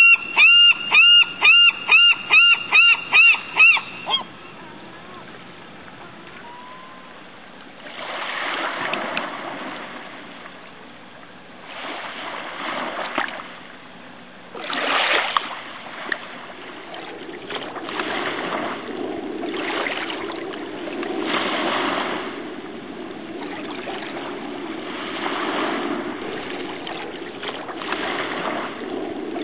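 A gull calling in a fast run of about a dozen loud, ringing calls over the first four seconds. After that, shallow waves wash in over sand and drain back, the wash swelling every few seconds.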